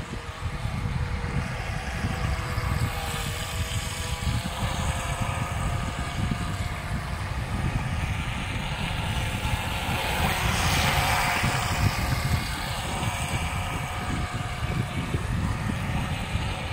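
Small electric motor of an HJ808 RC speedboat whining faintly as it runs across fast water, over a constant low rumble. The whine grows louder and brighter about ten seconds in, then eases.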